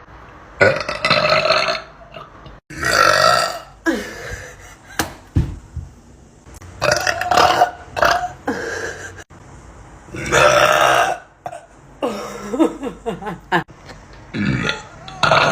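A person belching loudly on purpose: a run of about six long, deep burps, each lasting around a second, with a few seconds between them.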